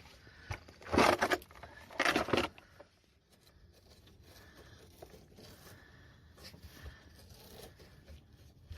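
Paper being handled: two loud rustling tears about a second apart, then faint scattered rustling.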